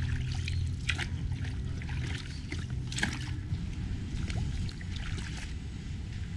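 Marina dockside ambience: water against the hulls and dock, scattered light clicks, and a low steady hum that eases off about three and a half seconds in.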